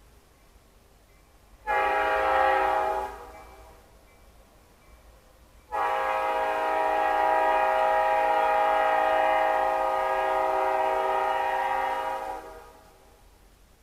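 Norfolk Southern diesel locomotive's multi-chime air horn sounding a shorter blast, then a long held blast of about seven seconds that fades out at the end, the close of a grade-crossing warning.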